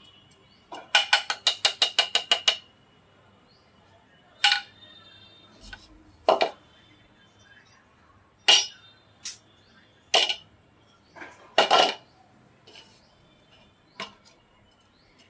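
Sharp metallic clinks of a stainless steel mesh strainer being tapped and handled to shake naphthalene powder through. A quick run of about ten taps comes about a second in, then single knocks every second or two.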